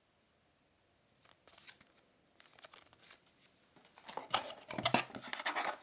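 Unboxing contents being handled: a paper-sleeved CD and card inserts rustle and click as they are moved and set down. Sharp clicks and light paper rustle start about a second in and grow busier near the end.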